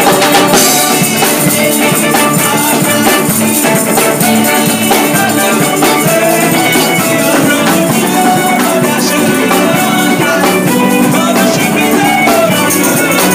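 Live gospel band playing: drum kit and electric guitars in a steady groove, loud and dense.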